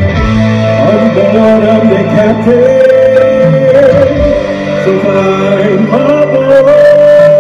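Music: a voice singing long, wavering held notes over a steady instrumental backing.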